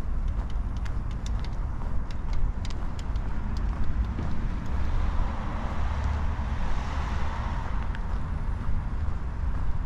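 A car passing by on a nearby road, swelling about six seconds in and fading again, over a steady low rumble.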